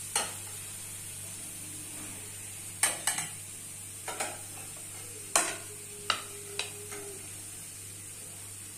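A metal spatula scraping and clicking against an iron tawa as fried potato-sago pancakes are lifted off, about eight sharp clicks. The oil underneath sizzles faintly over a steady low hum. One strike just past halfway leaves a short ringing tone.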